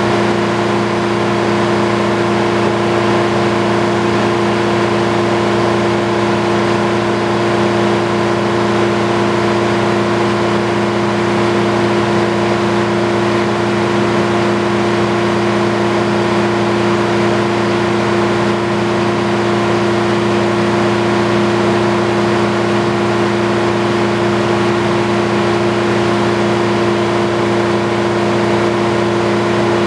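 Engine powering an antique circular sawmill, running steadily at constant speed: an even drone that holds its pitch with no change in load.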